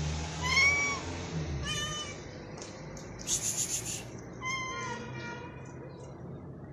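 Hungry stray cat meowing three times, short rising-then-falling meows, with a brief high hiss-like sound between the second and third.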